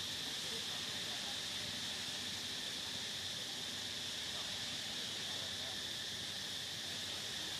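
Steady high-pitched drone of insects, even and unbroken throughout.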